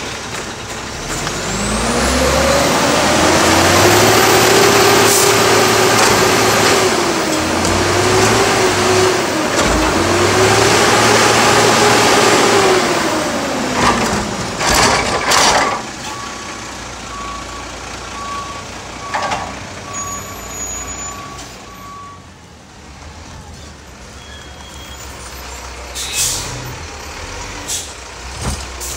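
Diesel garbage truck engine revving up and holding high revs for about twelve seconds, dipping briefly midway, then dropping back. A couple of sharp air-brake hisses follow, then a run of reversing beeps.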